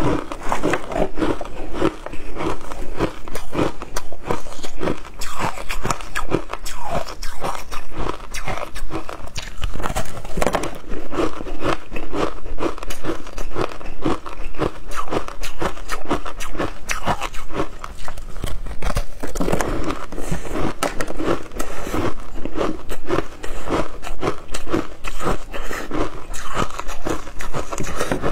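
Close-up crunching of a block of ice dusted with matcha powder being bitten and chewed. Dense, continuous crisp cracks and crunches, bite after bite.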